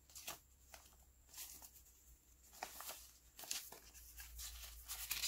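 Australian polymer banknotes rustling and crinkling as they are handled and counted, a faint series of short, dry crackles.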